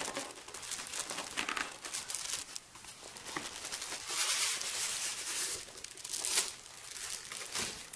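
Cardboard box and plastic packaging rustling and crinkling as a protein skimmer is slid out of its packing, loudest about halfway through, with a single sharp knock about six seconds in.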